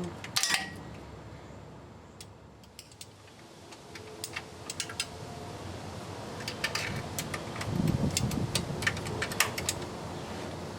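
Metallic clicks and clinks of a wrench and socket on the transmission oil pan bolts as they are tightened: one sharp click about half a second in, then a run of quick irregular clicks from about four seconds on.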